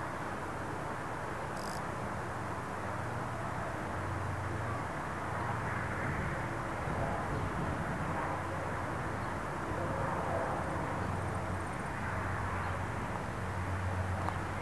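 Distant EL-class diesel-electric locomotives hauling a passenger train, a low steady engine drone that grows slightly louder near the end as the train approaches.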